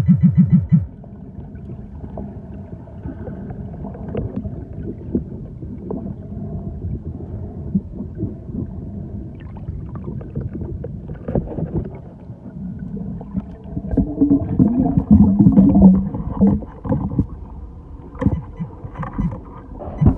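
Churning water with a low rumble and irregular knocks and thumps. A fast series of low pulses stops within the first second, and a wavering low tone comes through about two-thirds of the way in.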